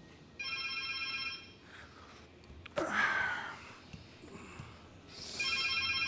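A telephone ringing twice, each ring about a second long and the two about five seconds apart. Between the rings comes a short, louder noise.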